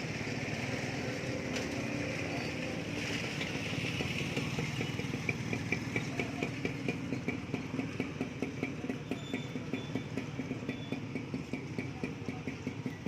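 Street traffic with a motorcycle engine running close by. From about four seconds in, its exhaust pulses steadily at a few beats a second.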